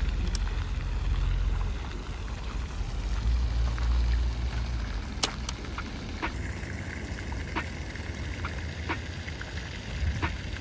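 Ambient background noise: a steady low rumble under an even hiss, with scattered sharp clicks and ticks.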